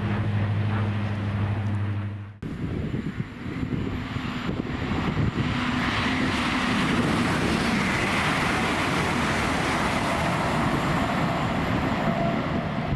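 A Lumo Class 803 electric train passing through the station, a long steady rush of wheels on rail and air with a faint whine in it. About two seconds in, it cuts in over the end of an LNER Azuma pass, which carries a low steady hum.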